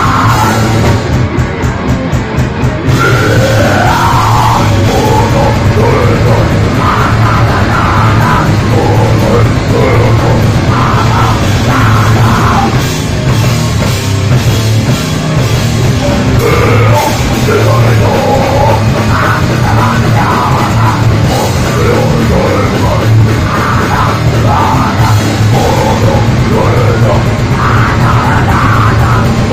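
Hardcore punk band playing live and loud: drums, distorted guitars and bass, with shouted vocals. A short run of drum hits opens it, and the full band with vocals comes in about three seconds in.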